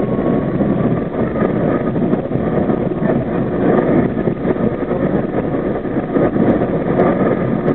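An R32 subway car running along the track, a steady loud rumble of the moving train with faint steady tones above it.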